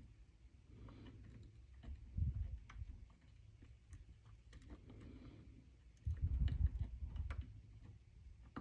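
Faint scattered clicks and light scrapes of tweezers and a soldering iron tip working on a flashlight's LED board while desoldering the emitter's contacts. Low rumbling handling noise rises about two seconds in and again for about a second near six seconds.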